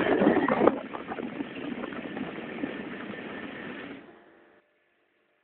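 Three-head hair wefting machine running, a fast, dense mechanical clatter of its sewing heads. It is loudest for the first second, then runs steadier and quieter and dies away about four and a half seconds in.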